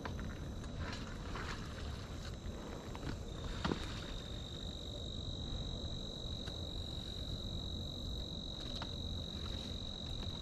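Insects droning in the weeds: one steady, high, shrill tone that gets louder about three seconds in and holds. A low rumble and a few faint clicks run underneath.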